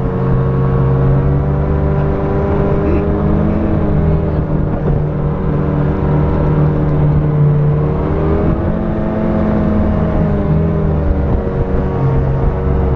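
Snowmobile engine running under load while towing a sled through snow, heard close up from the machine itself. Its pitch eases down about two thirds of the way through, then climbs again.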